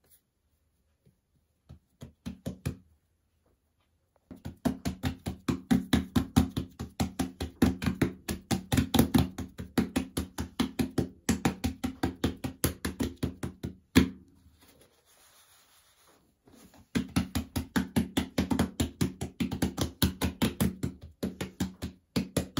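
Hands patting a ball of bazlama dough flat on a floured wooden board: quick dull pats about four a second, stopping for about three seconds in the middle, then starting again.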